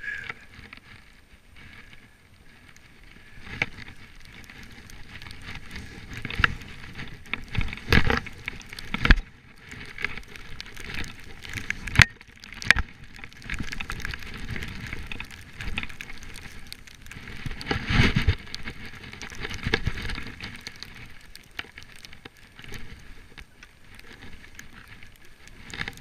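Skis running through deep powder snow, heard from the skier's own action camera: a rushing, hissing noise that swells and fades with the turns, loudest about a third of the way in and again past two-thirds, with a few sharp knocks along the way.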